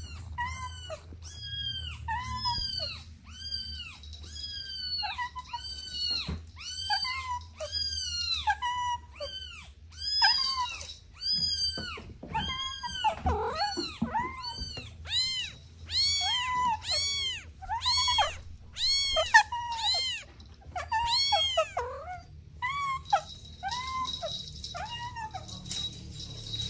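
Kittens meowing over and over: high, arching mews about two a second, some overlapping, that stop a few seconds before the end.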